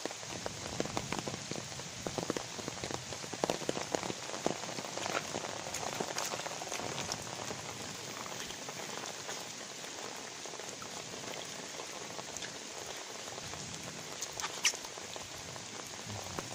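Light rain pattering, with many scattered small ticks in the first half and a couple of sharper clicks near the end.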